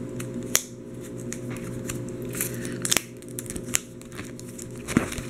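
Plastic pocket pages of a trading-card binder being handled, crinkling and crackling with a few sharp clicks. A steady low hum runs underneath.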